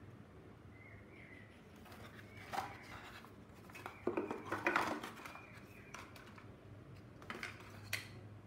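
Paperboard phone box and its inner tray being handled: rustling and scraping of the card packaging, loudest about four to five seconds in, with a couple of sharp clicks near the end.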